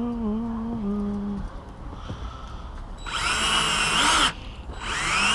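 Power drill driving screws into the wooden tabletop: two short whining runs, about three seconds in and again just before the end.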